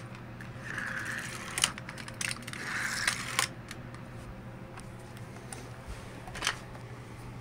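Sharp plastic clicks from a toy race-car launcher's starting lever being worked by hand, a few scattered over several seconds with the last about six and a half seconds in, mixed with soft rubbing and handling noise.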